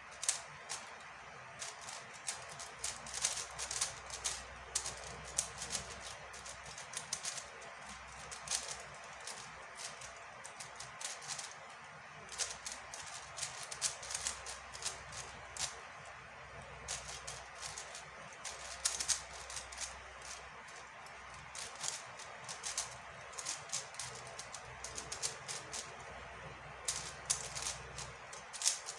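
MF5S 5x5 speed cube being turned by hand during a solve: its plastic layers click and clack in quick, irregular runs of turns with short pauses between them.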